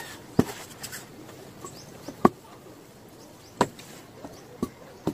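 About five sharp, short knocks and clicks, spaced unevenly, as small wooden toy-boat pieces (a carved hull and a cabin frame) are handled and set down on a cloth-covered table.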